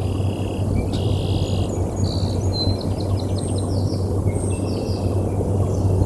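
Steady wind noise on an outdoor nest-camera microphone, with a constant low hum beneath it. Small birds chirp and trill over it several times.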